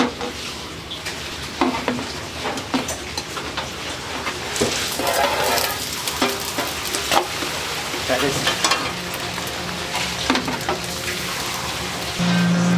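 Beaten egg sizzling in a hot nonstick frying pan while wooden chopsticks stir and scrape through it, with scattered clicks of the sticks against the pan. Near the end a steady low hum takes over.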